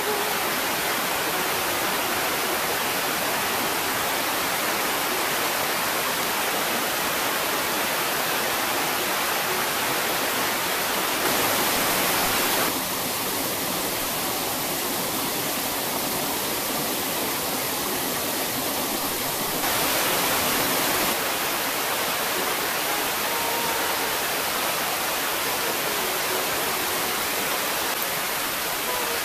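Heavy rain pouring steadily, with rainwater rushing along a forest stream, a dense even hiss. The sound shifts at a few cuts, briefly louder a little before halfway and again about two-thirds of the way through.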